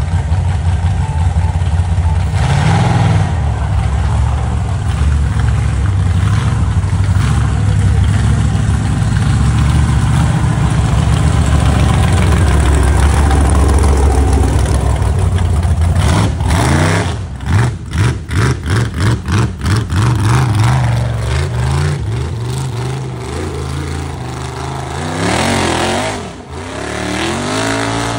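Rock bouncer buggy engines running loud and low, then a run of quick throttle blips about three a second in the middle, and rising revs near the end as a buggy claws up a dirt hill. The sound cuts off suddenly at the end.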